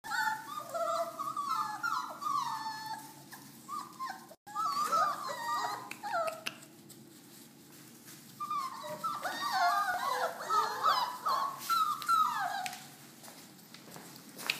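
A litter of Rhodesian Ridgeback puppies whining and yelping together, many short, pitch-bending cries overlapping. The cries come in two busy stretches with a quieter lull in the middle.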